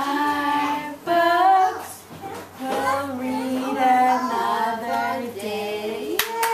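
A woman and young children singing a simple sung goodbye with long held notes. Hand clapping starts near the end.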